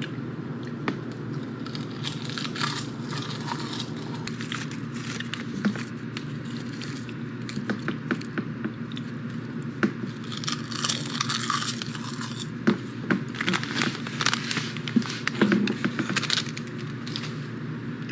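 Crunching and crackling of a thin, crisp snack being bitten and chewed close to the microphone. Denser bursts of crunching come about ten seconds in and again a few seconds later. A steady low hum runs underneath.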